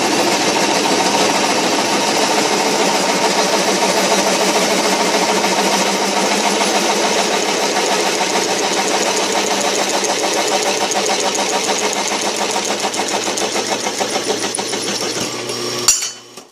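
Drill press running with a freshly sharpened 5/8-inch twist bit cutting into metal plate: a loud, steady machine sound, and the bit is cutting well. It stops abruptly about a second before the end.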